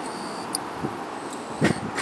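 Steady rushing jet noise from a twin-engine airliner touching down and rolling out on the runway, with a few short thumps, the loudest about two thirds of the way in.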